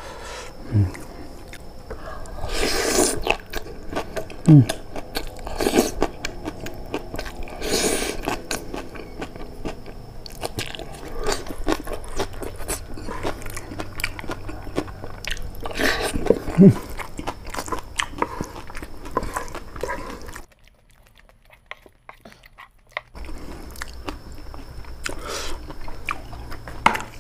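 Close-miked chewing and biting of boiled papaya stems in spicy peanut pecel sauce, with repeated crunches and wet mouth sounds; the older stem pieces are tough and need long chewing. The sound drops almost to silence for about two seconds near the end.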